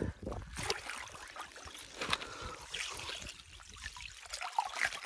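Water trickling and sloshing in a slushy ice-fishing hole as a large lake trout is lowered into it and released, with scattered small splashes and clicks of slush ice.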